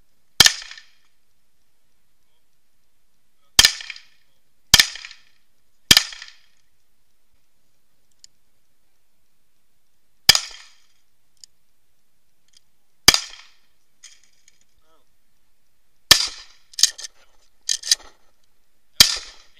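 Semi-automatic pistol firing single shots at an uneven pace, about ten in all, each a sharp crack with a short echo; the last four come closer together.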